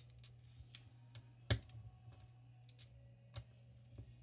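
Light clicks and ticks of small plastic Lego minifigure pieces being handled, as an arm is pressed onto a figure's torso, with a sharper click about a second and a half in and another near the end.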